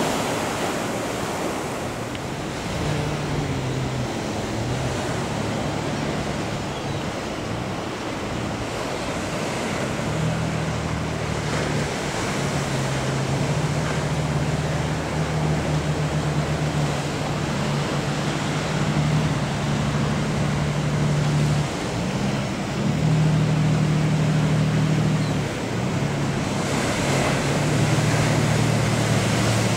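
Surf breaking and wind buffeting the microphone, with a fishing boat's diesel engine droning low underneath; the engine note steps up and down in pitch several times from about three seconds in.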